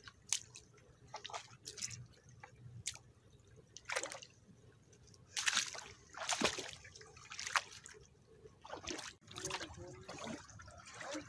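Shallow river water sloshing and splashing in short, irregular bursts, about seven or eight of them, the loudest a little past the middle.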